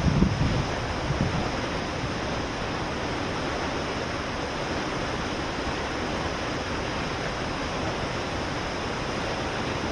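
Waterfall with a steady, even rush of falling water. A few low buffets of wind on the microphone come in the first second or so.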